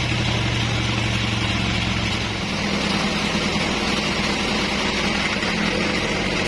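Homemade engine-driven bandsaw sawmill running steadily, its engine note shifting about two seconds in.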